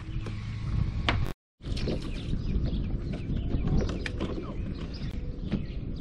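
Wind buffeting the microphone on an open boat deck, a steady low rumble with a few short clicks on top. It cuts out completely for a moment about a second and a half in.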